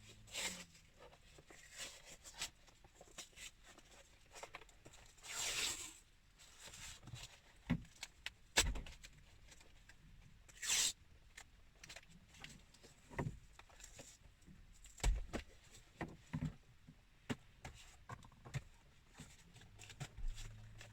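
Adhesive tape being pulled off the roll in several short rips, the longest about five and eleven seconds in, with small knocks and handling noises in between as it is pressed onto a plastic panel.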